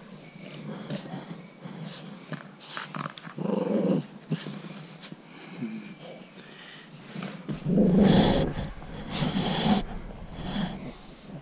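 Cavalier King Charles Spaniel growling in play while tugging and chewing a sock. The growls come in short rough bursts, loudest about four seconds in and again from about eight to ten seconds in.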